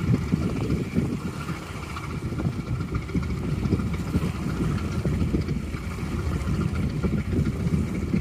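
Wind buffeting the microphone, an uneven low rumble, with a faint steady whine of machinery underneath.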